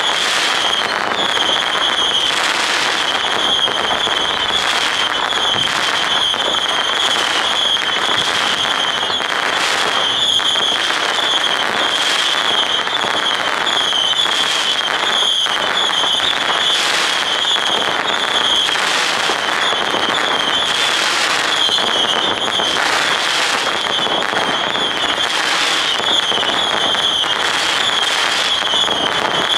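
Consumer fireworks going off in quick succession: dense crackling and pops, with a steady high whistle running through the whole stretch.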